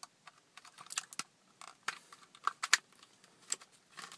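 Screwdriver working a small screw out of a plastic interior lamp lens: irregular sharp clicks and light scrapes, several a second, the loudest about two and a half seconds in.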